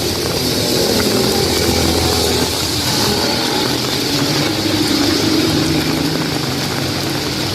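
Motor vehicle engine passing close by on a wet road, its pitch shifting partway through, over a steady hiss of heavy rain.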